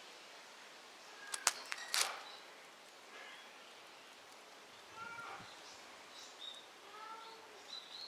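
A few sharp cracks or knocks, then several short, faint mews from a kitten, each call rising and falling.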